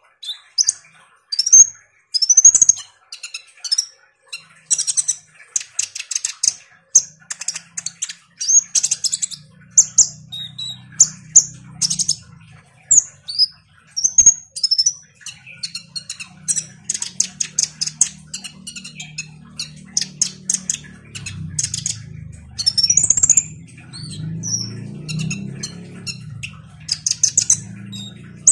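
Male Van Hasselt's sunbird (kolibri ninja) in full song: a near-continuous run of sharp, high chirps, short slurred whistles and quick trills.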